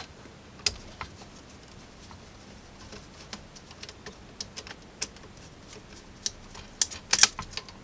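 Scattered light clicks and taps of a screwdriver and small metal and plastic parts as screws are taken out of a VCR's cassette loading motor mount, with a quick cluster of louder clicks near the end.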